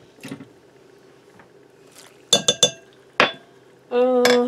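Metal measuring spoons on a ring clinking against each other and the glass mixing bowl: a quick run of four sharp clinks about halfway through and one more a little later. A short hummed voice sound near the end.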